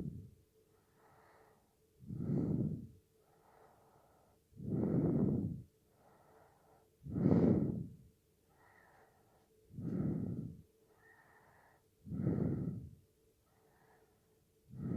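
A person snoring in sleep: a loud snore about every two and a half seconds, six in all, each followed by a softer breath. A faint steady hum runs underneath.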